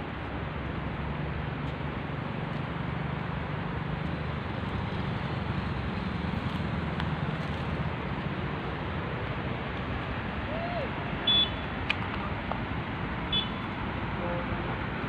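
Steady outdoor background noise, a low rumble under an even hiss, like distant traffic. Two short high chirps come in the last few seconds.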